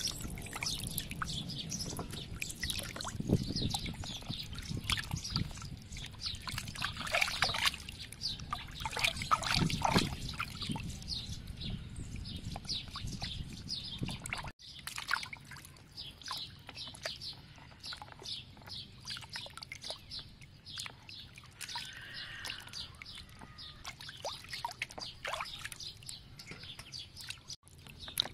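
Water sloshing and splashing as hands knead and rub raw pork ribs in a basin of water. The splashing is busier in the first half and breaks off briefly twice.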